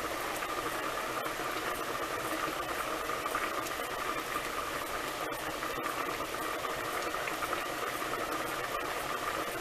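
A pot of ham hocks in broth at a rolling boil, bubbling steadily under a lid set ajar.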